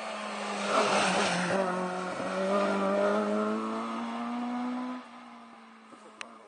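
Rally car engine at high revs passing close and pulling away, its note held high and rising slowly, with a loud rush of noise about a second in as it goes by. The engine sound drops away suddenly about five seconds in.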